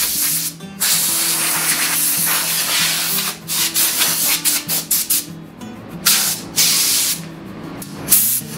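Compressed-air blow gun hissing: one long blast broken briefly near the start, then a string of short bursts from about three seconds in. Background music plays underneath.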